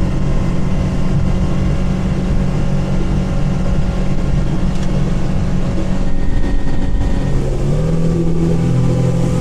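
Speedboat engine running at speed under a steady rush of noise, its note dropping about eight seconds in as the boat eases off.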